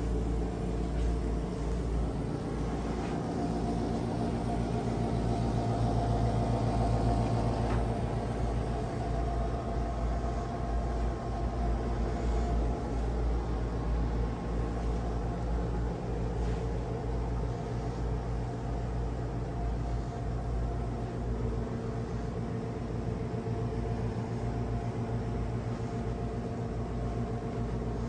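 Boat's air conditioning running with a steady low hum, swelling a little about six seconds in.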